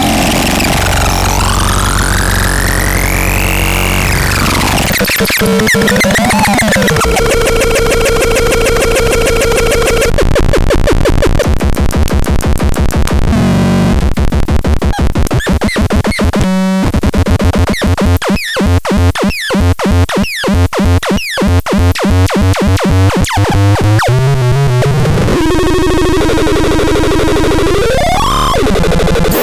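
HELLBELTRACH electronic noise instrument playing harsh, chaotic synth noise. It sweeps up and down in pitch, holds buzzing tones for a few seconds, then breaks into fast pulsing and choppy stuttering for about the middle third, and ends on another rising sweep.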